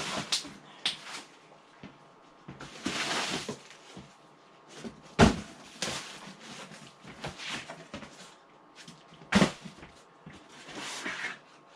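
Cardboard packing being handled and pulled apart: scattered knocks and rustling scrapes, with two louder thumps about five and nine seconds in.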